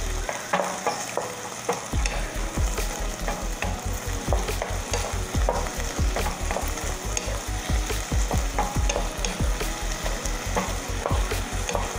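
Wooden spatula stirring and scraping sliced and minced pork around a coated pan, knocking against the pan about two or three times a second, over the steady sizzle of the pork cooking in a little simmering water and its own juices. The pork is being poached until it turns white all through.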